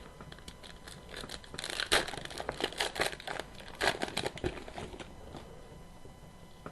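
A hockey trading card pack's wrapper being torn open and crinkled: a quick flurry of crackling and tearing that dies down about five seconds in.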